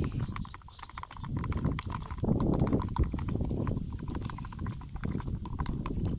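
A thin stick stirring a thick fish-bait mixture in a cut-down plastic jug, clicking and knocking quickly against the plastic, with a louder stretch about two seconds in.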